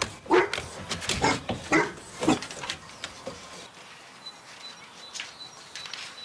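Dog barking: about four short barks in the first two and a half seconds, then quieter.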